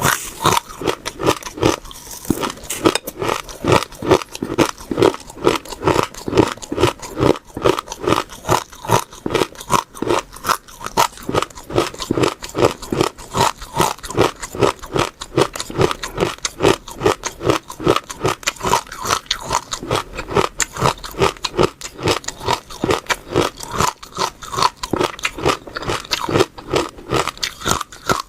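Close-miked chewing of crisp food, an even rhythm of crunchy bites several times a second.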